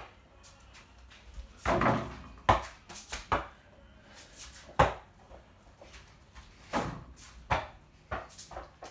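A scattered series of thumps and knocks, the sharpest about five seconds in. The sounds come from a small ball being bounced and shot at a mini basketball hoop mounted on a door, and from a person moving about on the floor.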